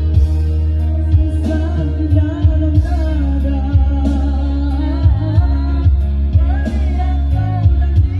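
A man singing through a microphone and PA over a karaoke backing track with heavy bass and drums.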